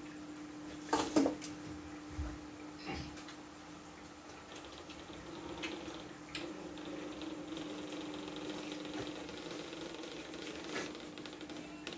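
A metal spoon clinking and scraping in a stainless steel bowl, with eating sounds, in a few short, scattered bursts, the loudest about a second in, over a steady low hum.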